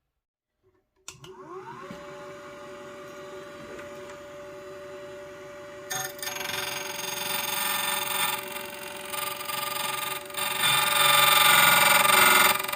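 Xhorse Condor XC-009 key cutting machine switched on about a second in, its motor spinning up to a steady whine; about six seconds in, the cutter bites into a key blank and a loud, harsh grinding of cut metal builds up over the motor.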